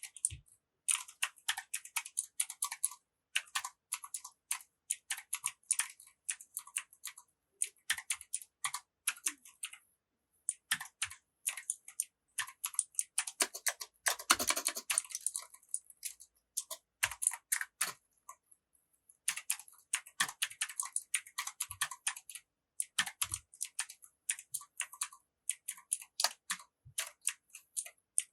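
Computer keyboard fitted with PBT plastic keycaps being typed on: rapid key clicks in bursts with short pauses, and a fuller, lower clatter about halfway through.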